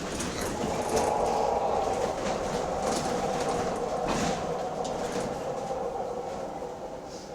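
Bus running with a steady mid-pitched drone, the odd noise the bus makes, with light clicks and rattles on top; it grows quieter over the last couple of seconds.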